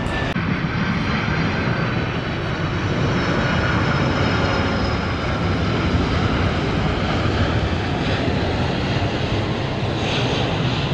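Boeing 787 jet airliner passing close by on its landing approach: a steady, loud engine rumble with high whining tones that slowly fall in pitch.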